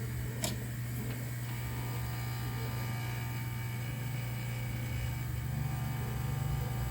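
Steady low electrical hum from running workbench equipment, with one light click about half a second in.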